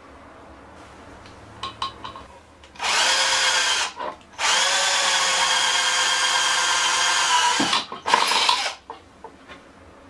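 Cordless drill boring into melamine-faced chipboard: a steady motor whine in three runs, about a second, then about three and a half seconds, then a short burst near the end. A few light clicks come just before the first run.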